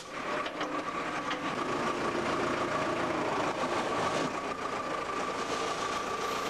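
Werner WF Trac forestry tractor's large Daimler-Chrysler diesel engine running steadily, with a high whine held over it.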